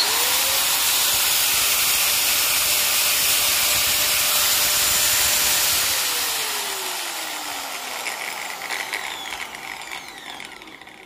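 Makita angle grinder, freshly repaired with a new field coil, switched on with no disc fitted: it spins up at once to a steady high whine, then about six seconds in it is switched off and coasts down with a falling whine. This is the grinder's normal healthy running sound, working perfectly.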